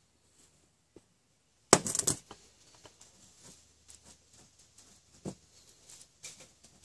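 A short burst of metal clinking from a spoon and a stainless steel pot about two seconds in, then soft scraping and light taps as the metal spoon packs congealed hamburger grease into a hollowed oak-log fat lamp.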